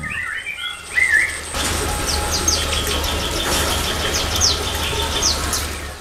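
Small cage birds chirping and calling in an aviary: short chirps at first, then repeated short high falling notes. From about a second and a half in they sit over a steady hiss and a low hum.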